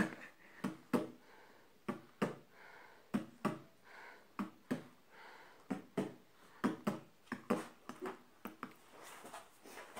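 Soft handling noises of pen and paper: a scatter of short clicks and taps, irregular and about two a second, with faint scratching between them, as an answer is written on a notepad.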